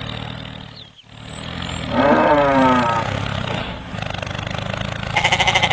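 Animal call sound effects over a steady tractor-engine hum. About two seconds in comes a loud call that falls in pitch and lasts about a second, and near the end a short quavering bleat. The hum drops out briefly about a second in.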